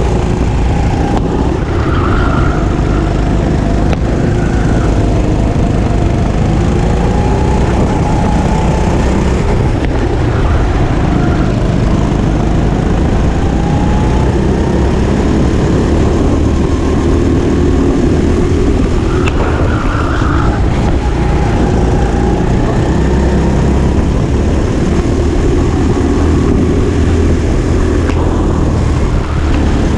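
Go-kart engine running hard from the driver's seat, its pitch rising on the straights and dropping into the corners, over and over through the lap, with other karts running close ahead.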